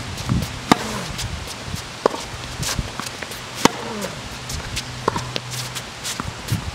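Tennis ball struck by rackets and bouncing on a hard court during a baseline rally: sharp pops about every second and a half, with fainter ticks between them.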